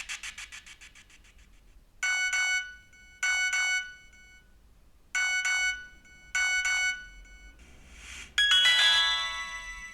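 Nokia 1616 message alert tones from the phone's speaker. After a fading tail from the previous tone, the 'Message 4' tone plays as four short double chimes in two pairs. Near the end the 'Message 5' tone follows: a brief swoosh into a bright bell-like chime that rings down.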